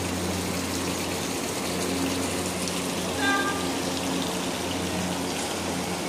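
Steady rush of running water with a low hum beneath it. A short, high pitched call cuts through briefly just past the middle.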